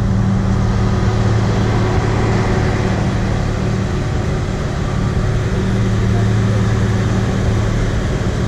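Motor vehicle engine running with a steady low hum under road and wind noise, heard from inside the moving vehicle; the hum weakens for a few seconds midway and then returns.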